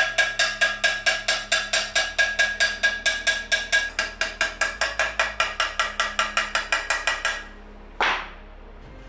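Small hammer tapping fast on the flared rim of an antique metal vase held against an anvil, about six light strikes a second, each ringing with a clear metallic tone. The tapping stops shortly before the end, and a single knock follows.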